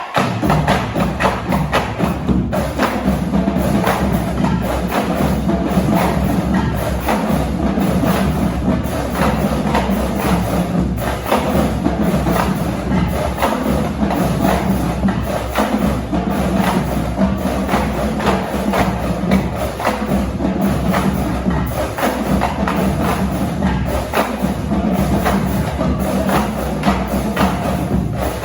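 Marching drumline playing a fast, dense cadence of rapid drum strokes with a steady low bass-drum part, starting sharply.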